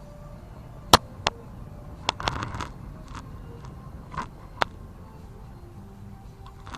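Handling noise: a few sharp clicks and knocks, the loudest about a second in, with a short scrape a little after two seconds.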